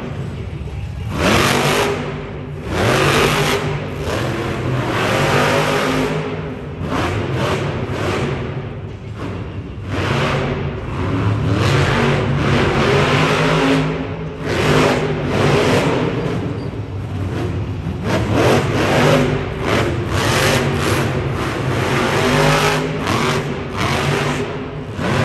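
Monster truck's supercharged, methanol-burning engine revving hard, its pitch climbing and dropping again and again.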